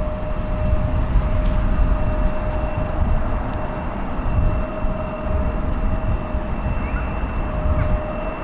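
Boeing 737-800's CFM56 jet engines running: a steady low roar with a steady whine held on two pitches.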